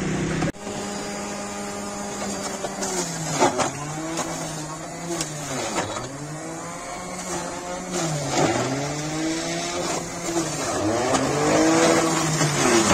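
Electric centrifugal juicer's motor running while chunks of beetroot and carrot are pushed into it. Its pitch sags under each load and climbs back, about every two and a half seconds, five times.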